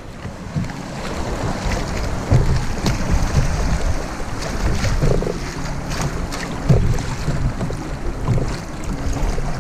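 Wind buffeting the microphone in a low, uneven rumble, with river water lapping and splashing against a kayak's hull in short irregular slaps.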